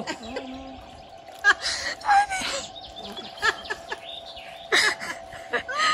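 Short bursts of people's voices, exclaiming and laughing, over a faint steady hum.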